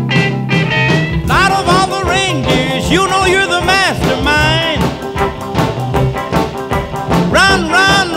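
Swing-style background music with a sliding, wavering melody line.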